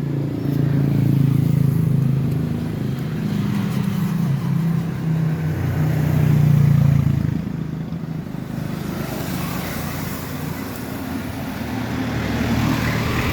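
Motor vehicle engine running, a low hum that swells twice in the first seven seconds, then gives way to a broader rushing noise.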